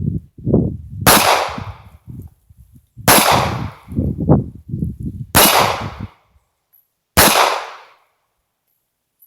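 Four shots from a Smith & Wesson M&P Bodyguard .380 ACP pistol, roughly two seconds apart, each trailing off in a short echo.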